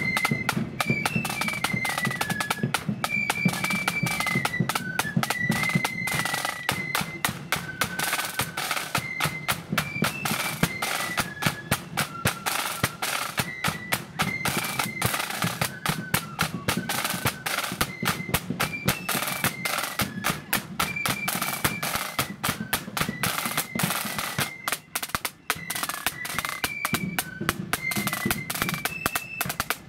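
Marching flute band playing a tune: flutes carry a lively melody over dense snare drumming and steady bass drum beats.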